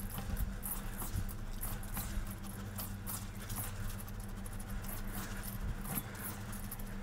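Gloved hands rubbing and squeezing wet soaked sticky rice in a stainless steel bowl, grinding the grains against a lump of alum: a continuous irregular gritty, crackly scratching. This is the alum polishing step that whitens the grains. A steady low hum runs underneath.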